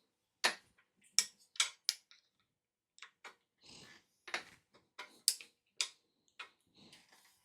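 Irregular sharp metal clicks and ticks, about a dozen, from a crank puller being threaded by hand into a bicycle crank arm.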